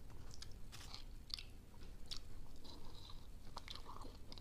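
Faint, close chewing of a mouthful of youtiao, a Chinese fried dough stick, with a scatter of small clicks.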